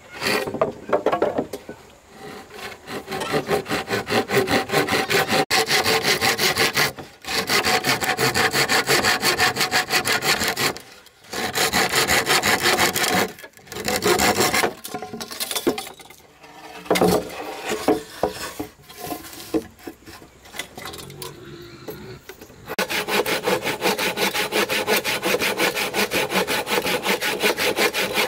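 Wood being sawn by hand in long runs of quick, even strokes, broken by several short pauses and a quieter, halting stretch past the middle before steady sawing resumes near the end.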